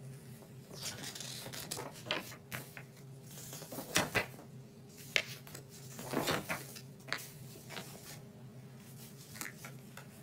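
Paper booklet pages being handled and turned: irregular rustling with a few sharper crinkles and taps, over a faint steady hum.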